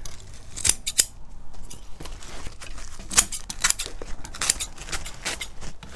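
Scissors snipping through burlap, trimming its excess from a seat's edge: a string of irregular sharp snips.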